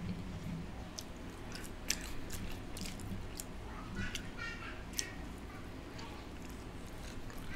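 Close-up mouth sounds of a person eating French fries: chewing with scattered sharp, wet clicks and smacks.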